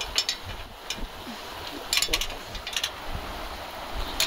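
Steady rushing noise with a few sharp metallic clicks and clinks scattered through it, the loudest pair about two seconds in and another at the very end.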